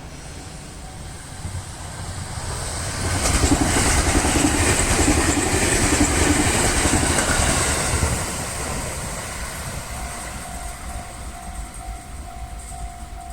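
A train passing over a level crossing, its wheels running over the rails. It builds up from about a second and a half in, is loudest for about five seconds, then fades.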